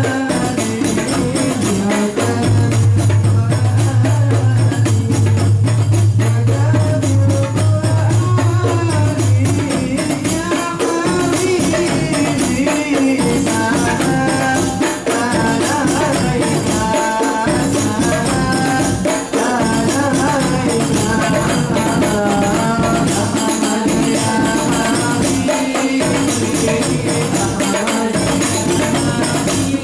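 Hadrah ensemble of rebana frame drums beaten by hand in a steady rhythm, with a sung melody over the drumming from about ten seconds in. A loud low hum runs under the first several seconds and stops about nine seconds in.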